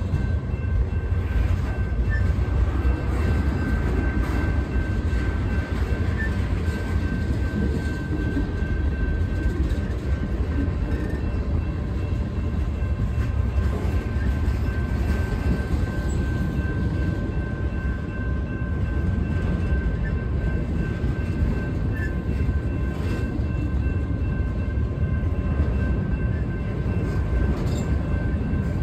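Freight cars rolling past on the rails: a steady low rumble of wheels and trucks, with a faint, thin high ringing tone held over it.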